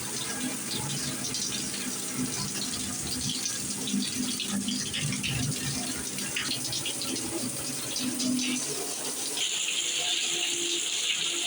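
Delta 75641 plastic shower head spraying water, an uneven spattering splash; near the end the spray changes to a steadier, higher hiss.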